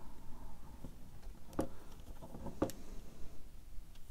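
Small Allen key turning a tiny screw into a plastic scale-model motorcycle fork, with quiet handling noise and two sharp clicks about a second apart.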